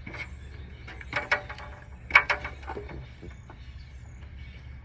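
Two quick clusters of clicks and knocks, the second louder, as a security camera is handled and fitted in place, over a steady low hum.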